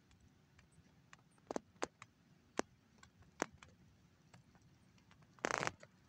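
Faint handling noise from a phone held outdoors: four sharp clicks over about two seconds, then a short rustle near the end as the phone is turned.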